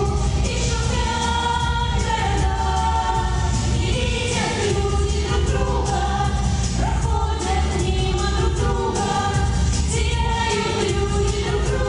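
A song with several voices singing together, choir-like, over a steady bass accompaniment.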